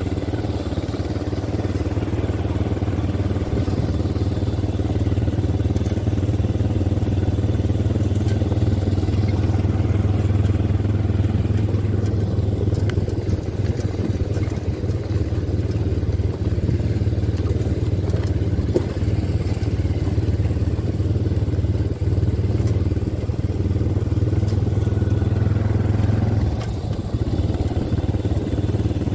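ATV quad-bike engine running steadily as it rides along a path. Near the end its note drops briefly and then carries on.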